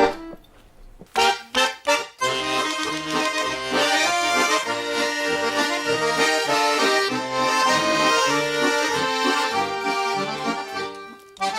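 Accordion playing a folk song's instrumental introduction: a few short chords about a second in, then a continuous melody over a regular bass-and-chord accompaniment.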